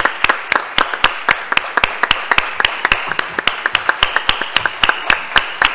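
Audience applauding: many people clapping steadily, with some sharp claps from close by standing out above the rest.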